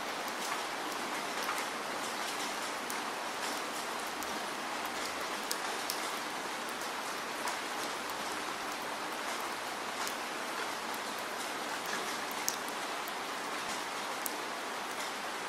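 Steady rain falling: an even hiss with many scattered sharp drop ticks.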